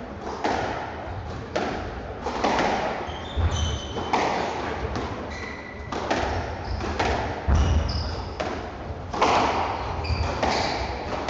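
Squash rally: the racket strikes the ball and the ball smacks the walls about once a second, each hit echoing in the court, with short high squeaks from the players' shoes on the wooden floor.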